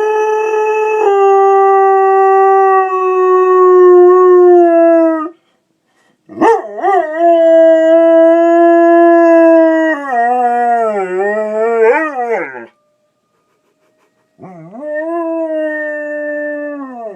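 Dog howling: three long, drawn-out howls with short breaks between them, each sliding down in pitch as it ends. The second wavers up and down near its end.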